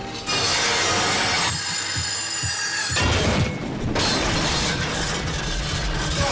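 Cartoon sound effects over background music: a noisy, crash-like clattering that starts suddenly, with a second loud burst about halfway through.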